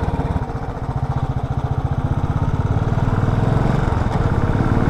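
Motorcycle engine running as the bike pulls away and accelerates, its beat quickening and getting gradually louder.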